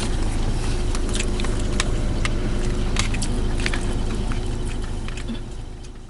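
Steady low rumble of a van's passenger cabin, with scattered clicks and rustles as the camera is handled against clothing. The sound fades out near the end.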